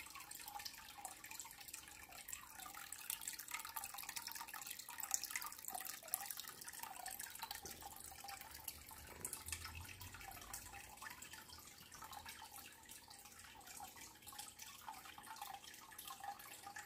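Faint water dripping and trickling: a steady run of small, irregular drops over a light hiss.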